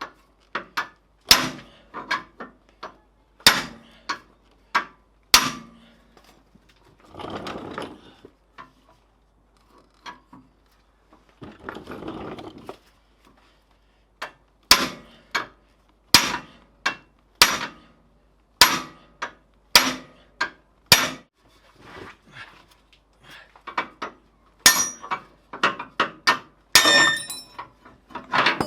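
Hammer blows knocking a seized steel torsion key off a Hummer H2's torsion bar after relief cuts were made in it. About two dozen sharp metal strikes come in irregular runs, and the last few ring out.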